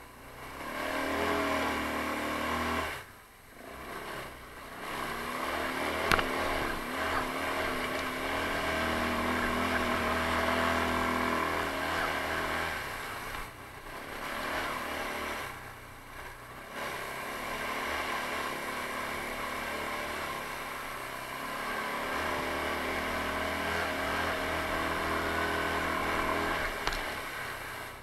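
Taotao 150cc ATV's single-cylinder four-stroke engine running under throttle while riding, its pitch rising and falling. The throttle eases off briefly about three seconds in and again around fourteen and sixteen seconds.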